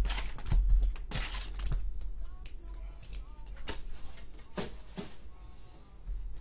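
Cardboard hobby-box flap rustling and wrapped trading-card packs being set down on a desk mat, a string of light taps and rustles, loudest in the first two seconds, over faint background music.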